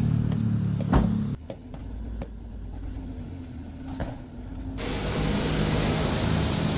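A big intercity bus's engine running under load as the bus starts up a steep hill, with a sharp click about a second in. The engine sound drops lower for a few seconds in the middle, then comes back.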